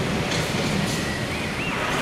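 Heavy lorry tractor units running as they move slowly in a queue: a steady, broad rumble of diesel engines and road noise. A brief high chirp is heard about a second and a half in.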